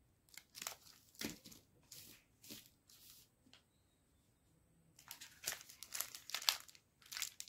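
Plastic chocolate-bar wrappers crinkling as hands handle them: a few separate rustles in the first three seconds, then a denser stretch of crinkling near the end.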